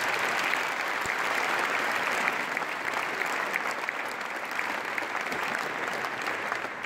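A packed hall audience applauding: dense, steady clapping that eases off a little near the end.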